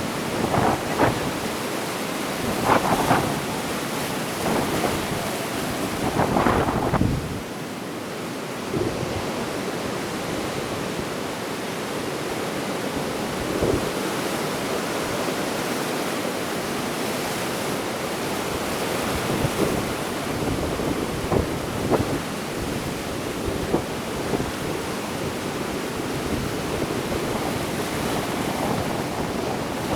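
Ocean waves breaking and washing on a beach, with gusts of wind buffeting the microphone. Several louder surges come in the first few seconds, then the surf settles to a steadier wash with a few smaller peaks.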